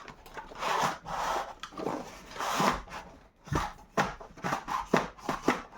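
Box packaging rubbing and scraping as a long tubular roller-blind motor is worked out of it against resistance, followed by a series of sharp knocks and taps.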